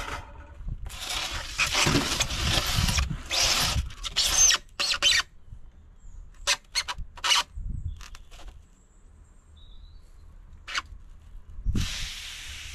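Expanded polystyrene (EPS) insulation board squeaking and scraping against a guillotine cutter: a long stretch of scraping, then a few short squeaks, then quiet. A steady hiss starts near the end.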